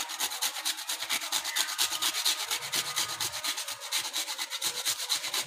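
Metal hand grater scraping in quick, regular strokes as a white food is grated into shreds.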